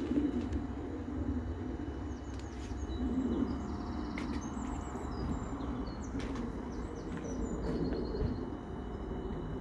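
Birds chirping and trilling outdoors in a series of short, high calls, over a steady low rumble.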